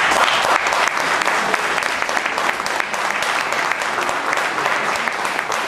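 Audience applauding after the song is announced, many hands clapping together, loudest at the start and easing a little.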